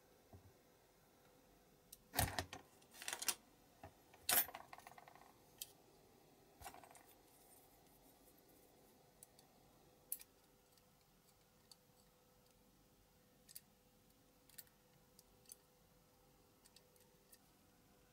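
Small metallic clicks, knocks and clinks from tweezers and a diecast metal model plane being handled: a burst of louder clatter in the first seven seconds, two of the knocks ringing briefly, then only sparse faint ticks.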